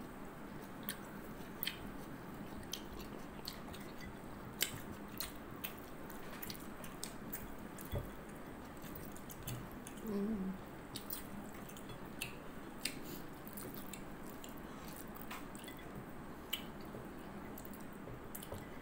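Close-up eating sounds: a person chewing rice and fermented fish, with irregular small wet clicks and lip smacks over a steady low hiss. A short hum from the eater about ten seconds in.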